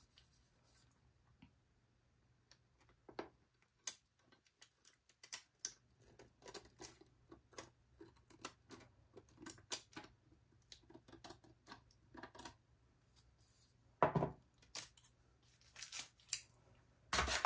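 Scissors snipping resin tape in short, irregular, faint snips, with a couple of louder clicks near the end.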